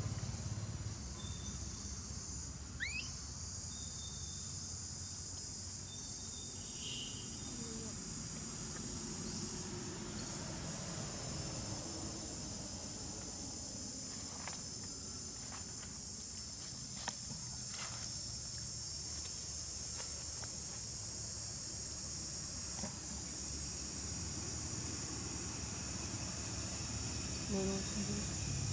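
Steady high-pitched insect chorus of continuous, evenly pulsing buzzing, with one short rising squeak about three seconds in and a few faint clicks in the middle.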